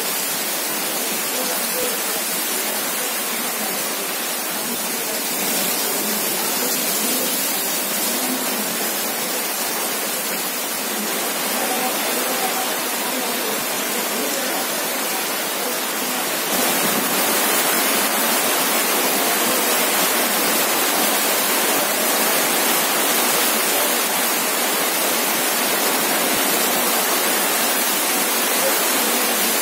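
Heavy rain pouring down in a steady, dense hiss, growing a little louder a little over halfway through.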